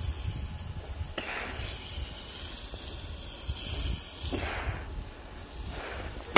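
Steady hiss of a low-pressure soft wash wand spraying biocide solution onto roof tiles. The spray swells a few times, over a low rumble.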